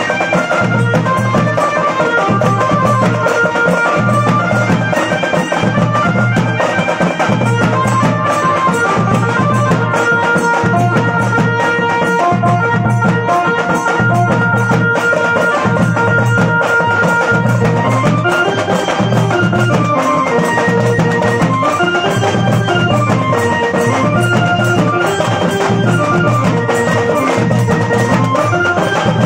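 A tasha party band playing a folk-song tune: an electronic keyboard carries a reedy, bagpipe-like melody over a steady, evenly repeating beat of large bass drums and tasha drums, with cymbals.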